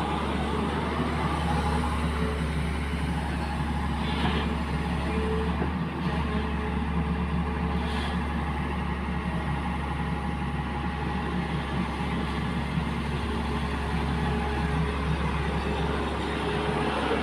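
Hydraulic excavator's diesel engine running steadily, a constant deep drone with a brief tick about eight seconds in.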